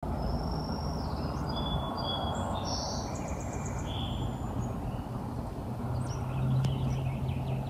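Songbirds singing in woodland: several short whistled phrases and a quick trill, over a steady low rumble of background noise. A low hum grows a little louder near the end.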